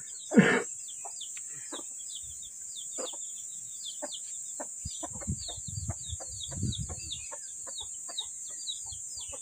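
Chickens clucking in short scattered calls, with one loud squawk about half a second in. Small birds chirp rapidly and repeatedly throughout, over a steady high hiss.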